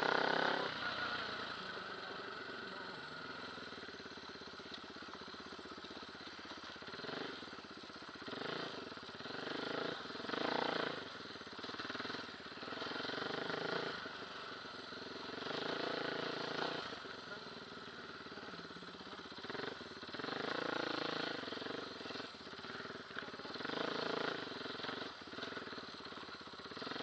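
Dirt bike engine revving up and easing off again and again as it is ridden along a rough trail, heard from a helmet-mounted camera. There is a loud rev right at the start.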